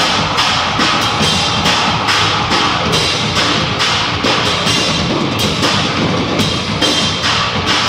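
Rock drum kit played hard in a heavy rock beat, with regular cymbal crashes over kick and toms.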